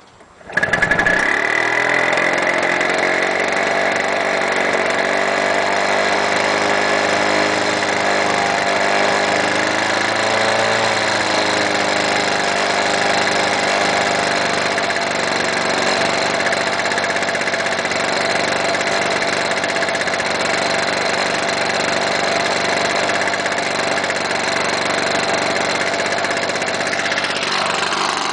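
Freshly rebuilt Victa Commando lawn mower's two-stroke Powertorque engine catches about half a second in and then runs steadily, its pitch wavering a little for a few seconds before settling. It is running, but the carburettor still needs fine tuning.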